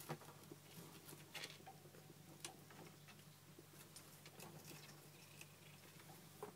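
Faint, irregular clicks and light pattering of a Syrian hamster's claws on a plastic cage platform as it moves about, a few sharper ticks standing out now and then.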